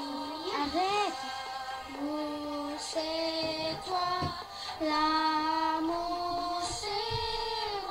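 A girl singing, holding long notes that step from one pitch to the next, with a wavering vibrato on the last held note near the end.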